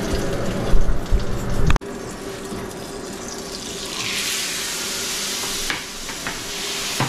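Rough low rumbling and knocking for the first couple of seconds, cut off sharply. Then, about four seconds in, a steady hiss sets in as the sheet pan of broiled fish comes out of the oven sizzling, with a couple of light clicks from the pan and oven door.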